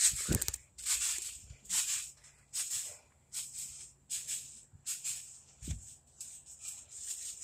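Phone handling and clothing rustle in quick hissy bursts, roughly one to two a second, with a couple of dull thumps as the phone is jostled.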